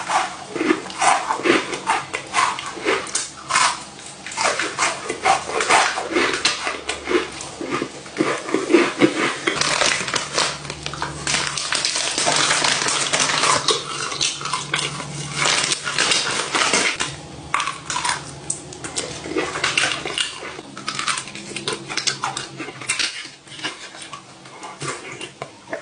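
Close-miked eating sounds: a chocolate chip cookie bitten and chewed with many crunchy crackles, then a long stretch of plastic bag crinkling as marshmallows are eaten with softer chewing, and a plastic drink bottle being twisted open near the end.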